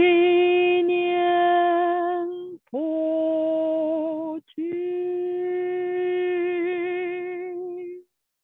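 A woman's voice chanting a slow melody in three long held notes with short breaks between them; the second and third notes slide up into their pitch and waver slightly as they are held.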